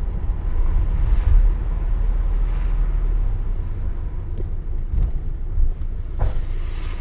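Car being driven on a road, with a steady low rumble of engine and road noise. A few light knocks come in the second half.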